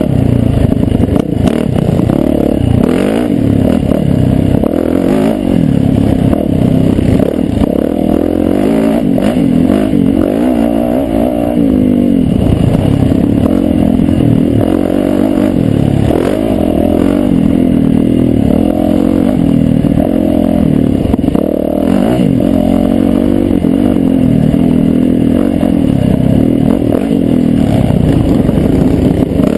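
Yamaha YZ450F dirt bike's single-cylinder four-stroke engine running under load, its revs rising and falling over and over as the throttle is worked along a bumpy trail, with knocks and clatter from the bike over the bumps.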